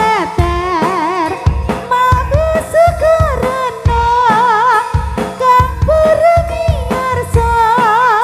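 Live jaranan music played loud through a sound system: a wavering, ornamented lead melody over heavy low drum strokes.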